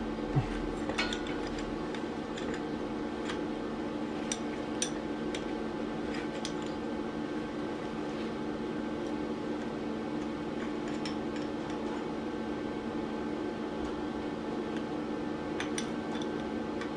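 A steady machine hum with scattered light metallic clicks and taps, a few of them sharper, about half a second in and near five seconds. No welding arc is running.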